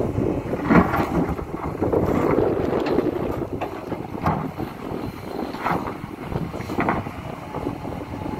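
Hidromek HMK 230LC excavator working: a steady diesel rumble with several sharp knocks at irregular intervals, and wind on the microphone.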